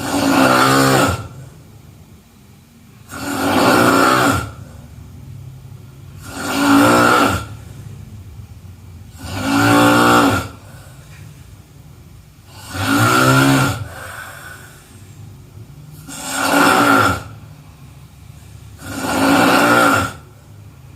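A person snoring in a steady rhythm: seven loud snores, each about a second long and roughly three seconds apart.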